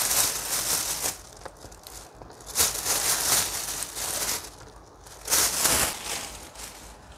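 Rustling and crinkling as the oranges are handled, in three bursts of a second or so each.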